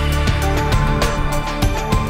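Intro theme music with a steady beat.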